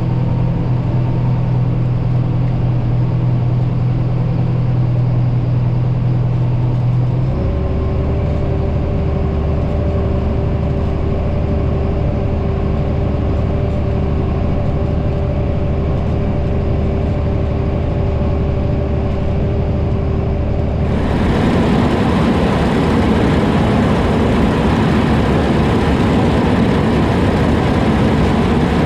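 Heavy diesel farm machinery running steadily under harvest work. Its hum shifts pitch about seven seconds in, and about two-thirds of the way through a louder, rushing noise takes over.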